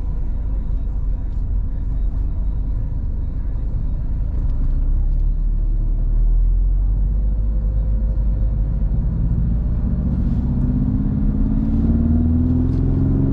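BMW roadster driving, with engine and road rumble. From about two thirds of the way in, the engine note climbs steadily as the car accelerates.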